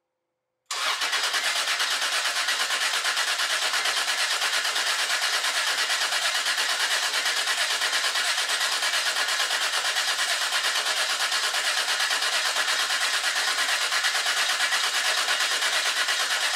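Toyota 2JZ straight-six turned over by its starter motor with the fuel pumps disconnected so it cannot fire, cranking to build oil pressure in the freshly rebuilt engine. The cranking starts suddenly about a second in and keeps going at an even, rapid pulse.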